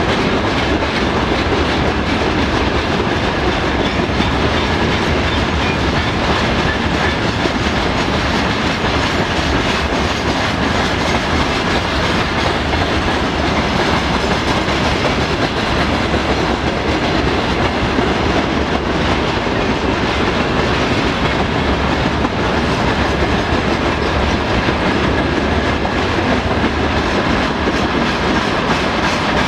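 Freight train wagons, covered hopper cars followed by oil tank cars, rolling past close by: a loud, steady noise of wheels running on the rails.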